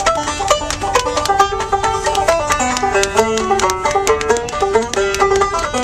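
A banjo played solo with quick, bright picking: a fast run of single plucked notes in a lively bluegrass-style instrumental.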